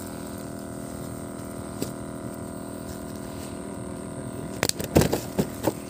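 A steady motor hum made of several steady tones. About four and a half seconds in come a handful of sharp knocks and rustles from a cloth bag holding a freshly caught fish being handled.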